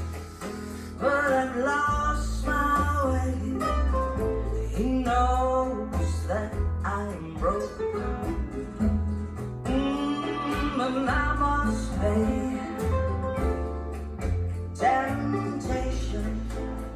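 Recorded song played back through Marten Getz loudspeakers: a singing voice over guitar, deep bass notes and steady percussion.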